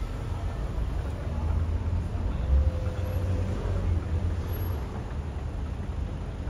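Steady low rumble of background room noise, with one low thump about two and a half seconds in.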